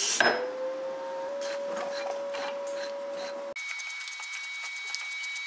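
Piston rod of an old hydraulic ram being slid in and out of its cylinder by hand; the bore has been sanded free of corrosion and one set of seals removed. A steady whistling tone rises in pitch at the start and holds for about three seconds, then changes abruptly to a fainter, higher thin tone.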